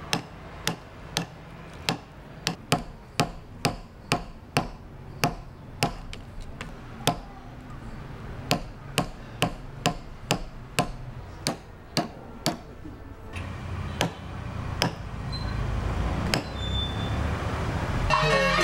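Wooden mallet tapping a steel punch to cut the pattern of holes into a shadow-puppet figure: sharp, regular strikes about twice a second, becoming sparse near the end. Music comes in at the very end.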